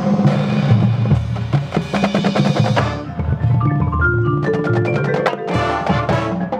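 Percussion ensemble playing: runs of pitched mallet notes like a marimba over a low bass line, with sharp drum strikes.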